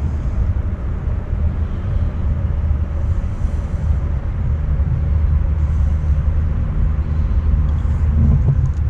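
Steady low rumble of wind buffeting the microphone outdoors over a pond.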